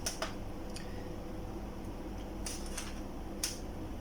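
A few short, light clicks and taps as test leads are touched to the LEDs of a TV backlight strip, over a steady low hum.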